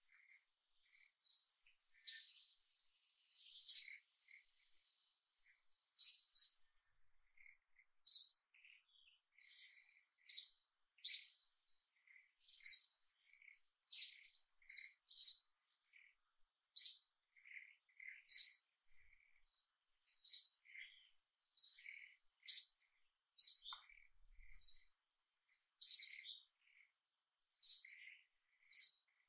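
A bird chirping: short, high, sharp notes repeated every half second to second and a half, over a faint steady high tone.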